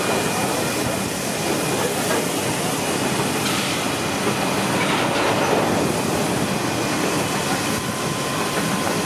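A train of coal hopper wagons rolling past, a steady rumble and clatter of wheels on rail with a faint thin squeal.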